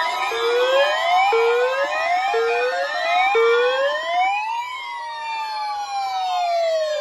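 Several electronic siren alarms sounding together, set off by a weather radio's weekly test alert. One repeats a rising whoop about once a second, and another wails slowly up and down, over a steady alert tone that stops about four and a half seconds in.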